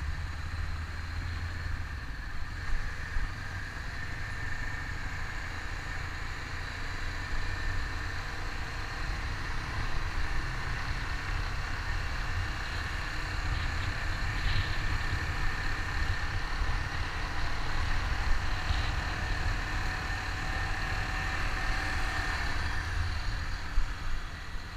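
Honda CBR500R parallel-twin motorcycle engine running steadily while riding along, with wind noise on the microphone.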